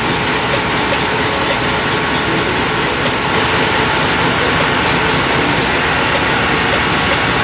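Yanmar diesel generator engine on a ship, running steadily and loudly close up on a test run after servicing.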